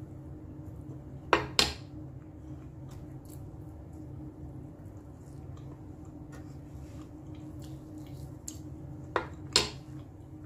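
Metal fork clinking against a wooden serving board in two quick double clicks, one about a second and a half in and another near the end, with soft chewing and mouth sounds in between over a steady low hum.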